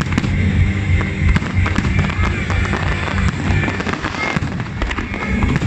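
Aerial fireworks display going off in rapid succession, with many sharp bangs and crackles over a continuous low rumble of bursts. Music plays underneath.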